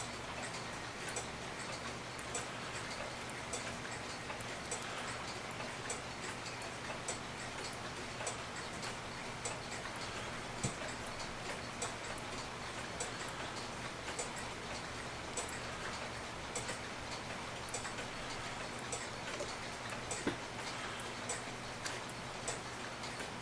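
Mechanical clock ticking with a steady, even tick-tock of sharp clicks, roughly two a second, over a faint steady low hum.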